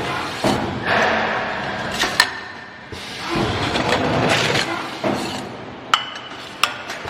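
CNC pipe dividing machine running through its cutting cycles: a swell of machine noise every few seconds, with sharp metallic clicks between strokes.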